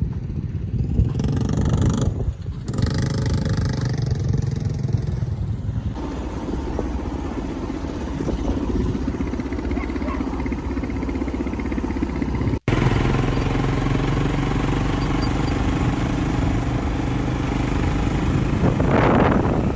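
ATV engines running as the quad bikes are ridden, a steady engine drone that breaks off for an instant about two-thirds of the way through.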